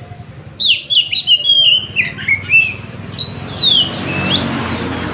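Oriental magpie-robin (kacer) singing a quick run of loud, sharp whistled notes, many sliding downward, starting about half a second in and stopping near four seconds. A rushing noise swells under the end of the song.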